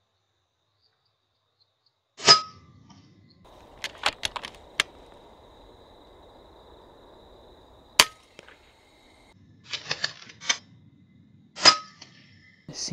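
Two sharp cracks from an FX Impact M3 .22 PCP air rifle firing, about nine seconds apart, each with a brief ring. Lighter clicks come between the shots, with a faint steady high tone behind them.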